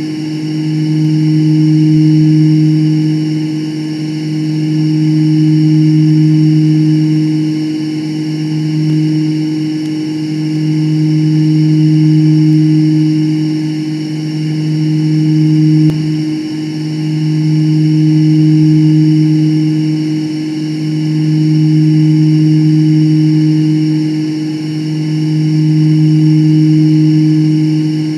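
Steady synthetic drone made by spectral (phase-vocoder) processing of a recorded female voice: a held low tone with its overtones that swells and fades about every four seconds, with a brief click about halfway through.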